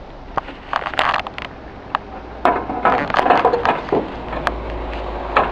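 Irregular knocks, clicks and scraping of roof tiles and boots on roof battens and laid tiles, busiest about two and a half to four seconds in. A steady low hum comes in after about four seconds.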